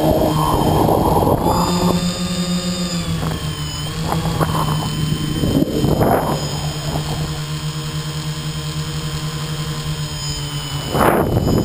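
Tricopter's electric motors and propellers buzzing steadily, heard from the GoPro on its frame, the pitch shifting a little with throttle. Rushing wind noise on the microphone surges at the start, about six seconds in, and near the end.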